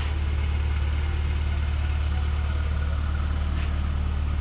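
1995 Rover Mini Mayfair's 1275 cc A-series four-cylinder engine idling steadily, an even low hum. There is a faint click about three and a half seconds in.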